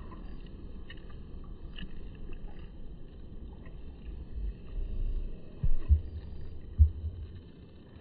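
Low rumble, with a few dull thumps between about five and a half and seven seconds in.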